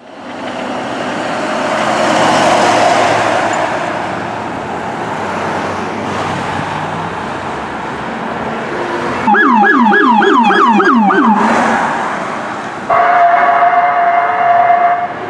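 Ambulance and police car emergency sirens with traffic noise. A wailing siren and street noise build up first; about nine seconds in comes a fast yelp of about three sweeps a second for two seconds, and near the end a steady electronic horn blast for about two seconds.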